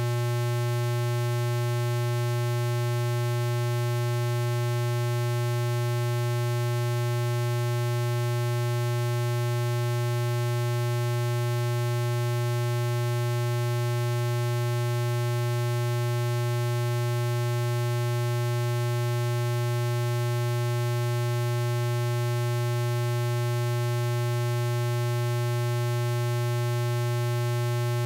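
Synthesized healing-frequency tone: a low, steady electronic hum with a fainter higher tone above it, unchanging throughout, with no music.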